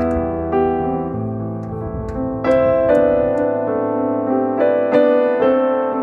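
Background piano music, a slow melody over sustained chords, with new chords struck about two and a half and five seconds in.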